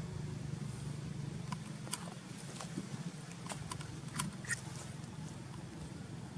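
Sharp little splashes and drips of water as a swimming macaque comes up to the surface, over a steady low hum.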